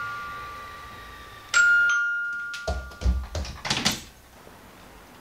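Electronic doorbell chime ringing, its two tones struck once more about a second and a half in and fading out. Then a quick run of clicks and knocks as the door handle and latch are worked from inside.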